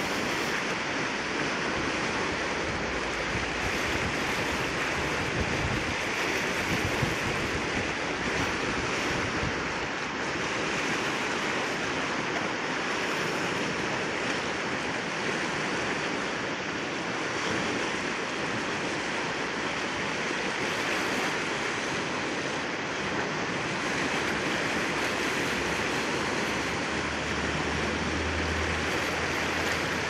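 River rapids: fast water rushing over a shallow rocky stretch, a steady, unbroken rush of white water.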